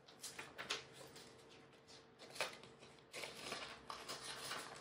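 Plastic binder sleeves crinkling and rustling as photocards are handled and slid into the pockets: a few sharp crinkles, then a denser rustle from about three seconds in.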